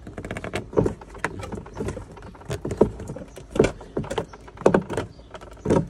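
Irregular knocks, clicks and creaks of hard plastic as a support tube is pushed and worked into the snap-fit plastic bracket under a kids' slide; the fitting has not yet clicked home. Several louder knocks stand out among the smaller clicks.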